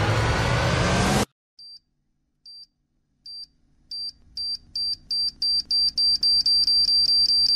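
Bomb countdown timer beeping: short, high, single-pitched beeps that start about one every second and speed up to about four a second, getting louder as detonation nears. Before it, a loud rushing noise cuts off abruptly about a second in.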